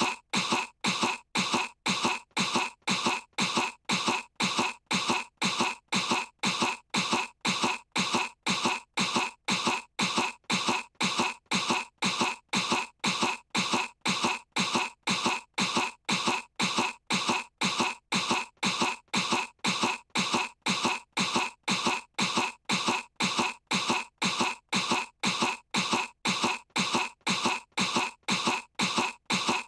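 A cartoon girl's fake, put-on cough, one short cough repeated over and over at an even, quick pace, as if looped: pretend coughing to feign being sick.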